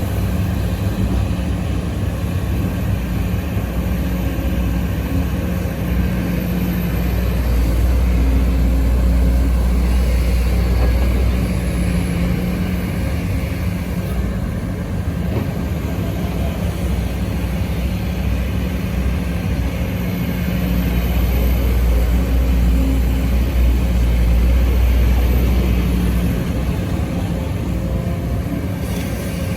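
Sumitomo SH210F excavator's diesel engine running steadily with a deep drone, growing louder twice as it works under hydraulic load while digging and swinging soil.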